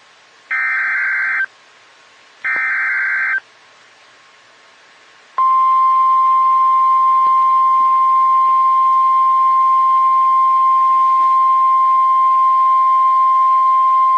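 Emergency Alert System SAME header: two one-second bursts of buzzing digital data tones, about two seconds apart. A few seconds later comes the single steady NOAA Weather Radio 1050 Hz warning alarm tone, held for about nine seconds, which signals that a National Weather Service warning follows.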